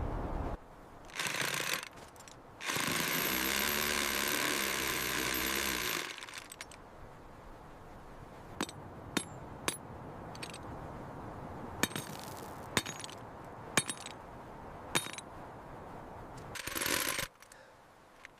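A hammering power tool runs loudly for about three seconds, then a string of about ten sharp, separate clinks follows over the next several seconds. Short scraping bursts come just before the tool and again near the end.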